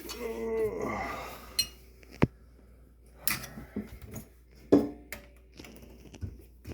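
Scattered metallic clinks and knocks, about half a dozen spread out, from tools and parts being handled while the garbage disposal's electrical wire is hooked up.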